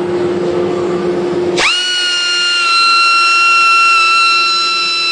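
Die grinder spinning a flush trim bit: first a rough, noisy grinding sound, then about a second and a half in a sudden change to a steady, high-pitched whine.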